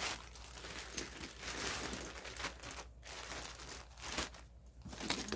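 Clear plastic wrapping crinkling and rustling as it is pulled off and handled, in irregular bursts with two short pauses.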